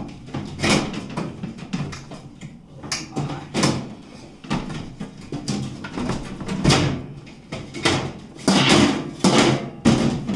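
A cloth rubbing over a countertop oven in repeated, uneven wiping strokes, with knocks and rattles as the appliance and its door are handled.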